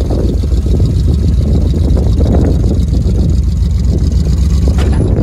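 A vehicle engine idling with a steady low rumble.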